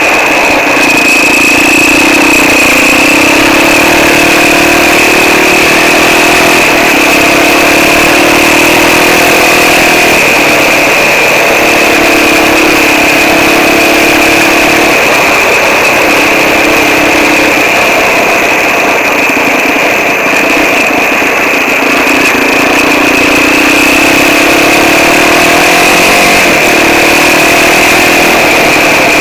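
Quad bike (ATV) engine running close to the microphone while riding a gravel track, its pitch rising and falling as the throttle opens and eases off. A steady high-pitched whine sits over the engine.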